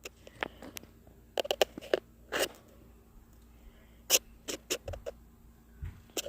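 Irregular sharp clicks, taps and scrapes of a new folding pocket knife being handled and worked open by hand, its blade still stiff. The sounds come in two clusters, with a longer scrape about two and a half seconds in.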